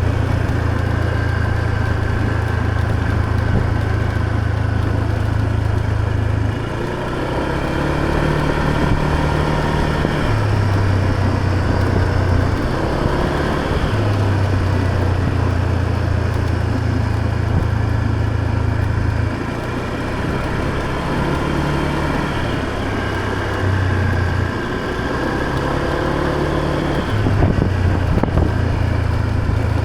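Motor scooter engine running while riding, its note stepping up and down several times as the throttle changes.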